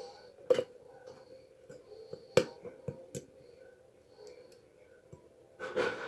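Battery-powered MOSFET spot welder discharging through copper probes into two layers of 0.2 mm nickel strip: two sharp snaps about two seconds apart, a couple of smaller clicks after the second, and a longer, rougher sound near the end, over a faint steady hum.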